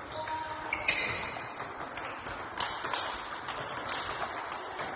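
Table tennis ball being struck and bouncing during play: sharp clicks, about one or two a second, irregularly spaced.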